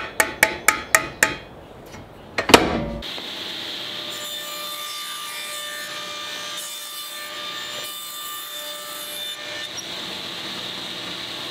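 Quick light taps on a table saw's rip fence, about four a second, nudging it over slightly, then one loud knock. After that a table saw runs steadily, ripping a thin strip of 1/4-inch plywood for a sled runner as it is fed through with a push block.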